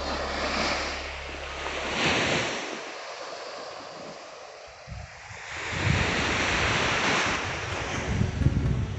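Small waves breaking and washing up a beach, the surf hiss swelling and falling back a few times, with wind buffeting the microphone in the second half.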